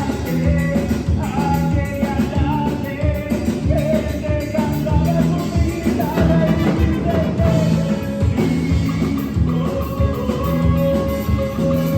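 A band playing upbeat music, with a singing voice over a repeating bass line and steady drums.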